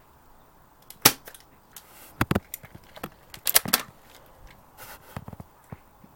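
Toy BB revolver being cocked and fired, with a few sharp cracks and clicks. The loudest crack comes about a second in, a pair follows a little after two seconds, a cluster comes at about three and a half seconds, and fainter clicks come later.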